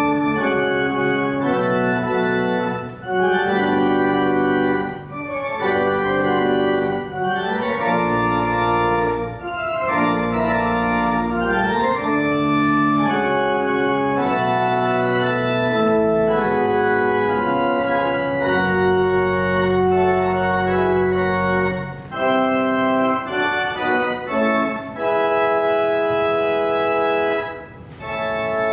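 Pipe organ playing held chords, with deep pedal notes joining in at times and brief breaks between phrases.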